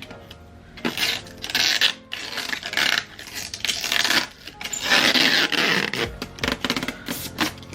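Scraping and rustling of a small plastic mini air cooler being handled, in bursts from about a second in, with music playing underneath.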